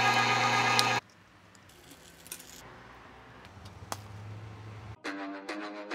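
Electric meat grinder motor running with a steady hum while grinding lamb, cutting off abruptly about a second in. A quiet stretch with a few faint clicks follows, and intro music starts near the end.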